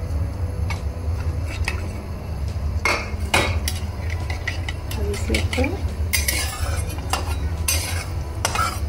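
Flat metal spatula scraping and clinking against a metal kadhai as whole spices are stirred in hot oil, in irregular strokes that bunch together about three seconds in and again near the end. A steady low hum runs underneath.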